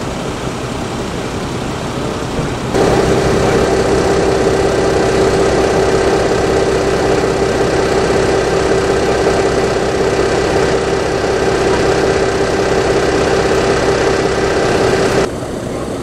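An engine running steadily at idle, a constant even hum. It comes in abruptly about three seconds in and cuts off just before the end, with quieter street noise on either side.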